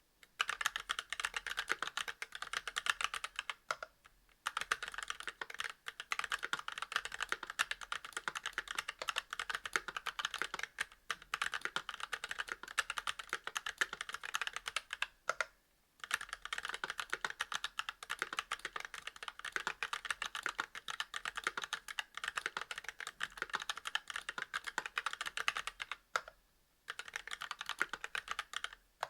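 Fast, continuous typing on a mechanical keyboard with Kailh Box Red linear switches, a brass plate and GMK keycaps, broken by a few short pauses.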